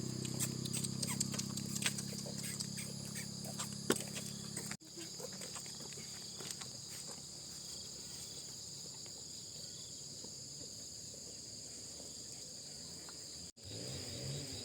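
Insects, crickets or cicadas, shrilling steadily in several high tones. For the first five seconds a low hum and scattered sharp clicks sound under them, then the insects go on alone.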